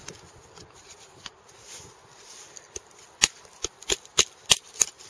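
Batoning: sharp wooden knocks as a knife is driven down through a short upright piece of wood resting on a rock, to split it. A few faint taps come first, then a run of about six hard knocks, roughly three a second, in the last two seconds.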